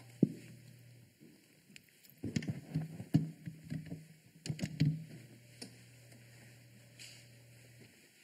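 Desk microphone being handled and adjusted: a sharp click just after the start, then a few seconds of knocks, bumps and rubbing picked up through the microphone. A low steady hum sits underneath before and after the handling.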